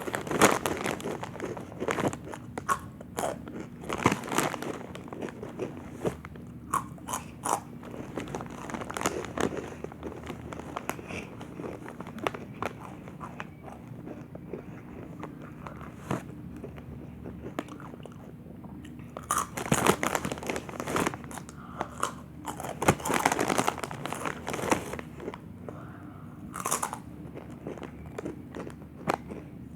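Dynamite Takis rolled tortilla chips being bitten and chewed with loud, crackly crunches close to the microphone. The crunching comes in quick runs, densest around twenty and twenty-four seconds in.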